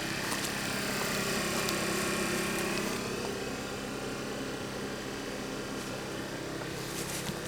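Distant engine noise, swelling for a couple of seconds and then fading as if something is passing, over a steady low hum.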